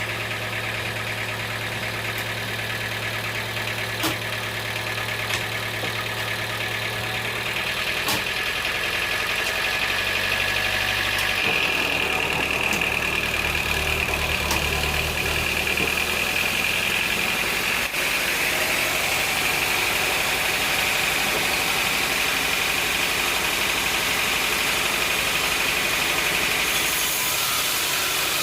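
Sawmill machinery running steadily with an engine hum. There are a few sharp clicks in the first third, and the pitch of the hum shifts about a third of the way in as a steady high whine joins it and holds.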